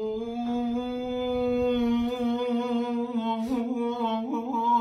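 Unaccompanied male voice in Iraqi maqam Saba, holding one long steady note between lines of the poem. About three seconds in, a wavering ornamented line joins it.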